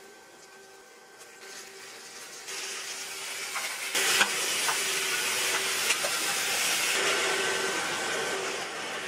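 Sliced onions and carrots sizzling in hot oil in a saucepan. The sizzle builds as the vegetables go in and is stirred, with a wooden spoon knocking against the pan a few times around the middle. A steady faint hum runs underneath.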